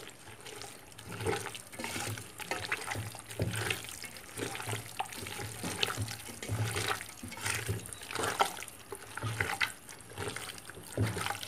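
Mutton pieces being mixed with yogurt and ground masala paste in a bowl: a run of irregular wet stirring strokes, a couple or so a second.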